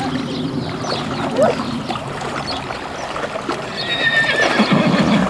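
Horse wading through a shallow river, water splashing around its legs. About four seconds in, a horse whinnies, a held high call that ends in a low, pulsing part, the loudest sound here.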